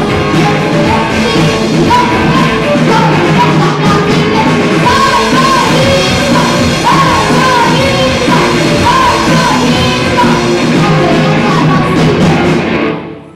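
Live rock band playing: a child's singing voice over drums and amplified instruments, the song stopping abruptly near the end.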